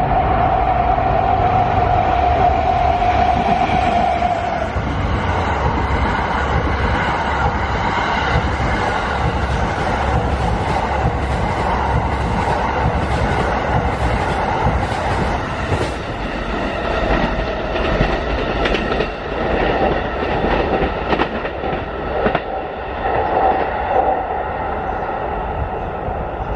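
An EF81 electric locomotive hauling the Cassiopeia sleeper train passes. A steady hum is heard for the first few seconds, then the coaches' wheels clack over the rail joints in a quick, even rhythm, which eases off in the last third as the train pulls away.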